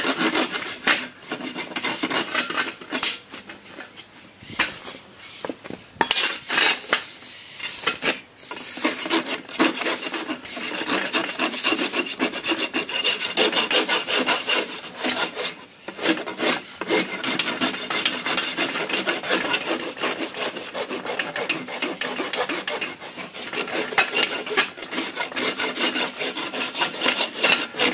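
A flat file rasping in repeated strokes across a horse's hoof and the cut-off ends of the soft screws holding the shoe, filing them back flush. There are a couple of short pauses between runs of strokes.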